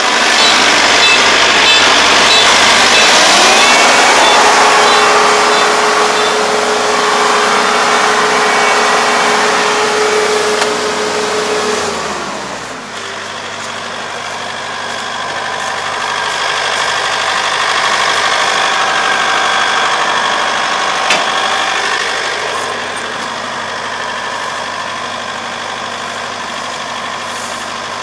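Kubota combine harvester's diesel engine and threshing machinery running at working revs while reaping. About twelve seconds in, the revs wind down and the machine settles to a lower steady idle as it stops, with lodged rice caught in its reaper.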